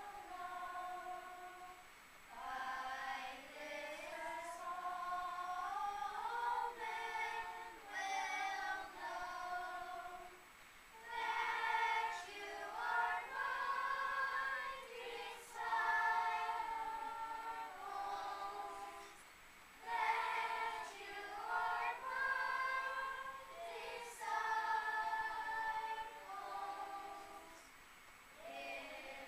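Children's choir singing, phrase after phrase with brief pauses between them.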